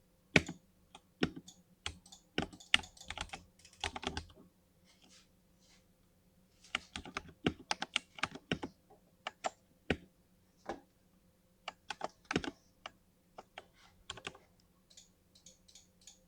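Keys being typed on a backlit RGB LED computer keyboard: irregular runs of quick keystrokes with short pauses between them, including one pause of about a second a third of the way through.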